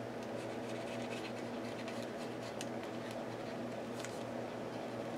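A paint marker's nib scratching and tapping on a paper journal page as lines are drawn, with a few light ticks, over a steady low hum.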